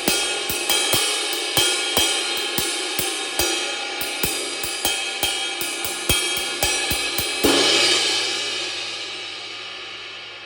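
A repaired 22-inch Istanbul Mehmet Session ride cymbal played with a stick in a steady pattern of about two to three strokes a second. About seven and a half seconds in it is struck harder and left to ring, the wash fading slowly.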